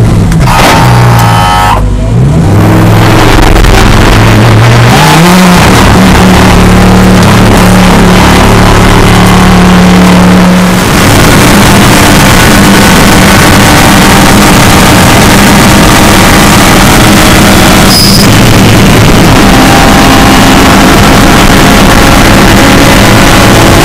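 Audi R8 LMS GT3 race car's V10 engine, heard loud from inside the cockpit, revving up and accelerating. Its pitch climbs over the first few seconds, then it holds high revs at speed, with a short sharp click about three-quarters of the way through.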